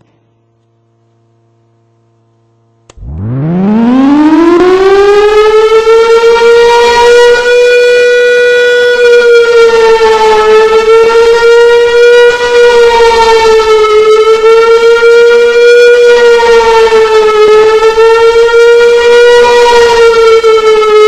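Outdoor civil defense warning siren being tested: it starts about three seconds in, winds up quickly to full pitch and holds one steady loud wail, the pitch dipping slightly every three to four seconds.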